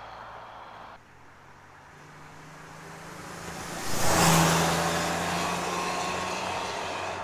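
Exhaust of a 1997 Camaro's 3800 Series II 3.8-litre V6 through a Walker Sound FX 18235 muffler, heard from outside the car. The engine sound builds, is loudest about four seconds in, and then slowly fades.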